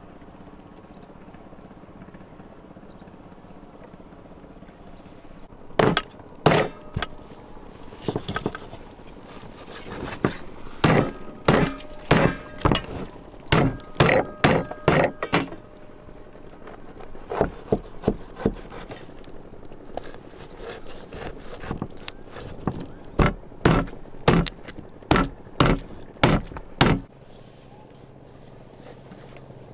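Knife chopping on a wooden cutting board: hard strikes about two a second in several runs, starting a few seconds in and stopping near the end.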